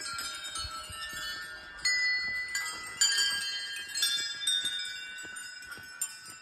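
Small brass temple bells hanging along a walkway railing, struck one after another by hand. There are about five sharp strikes, each ringing on and overlapping the next.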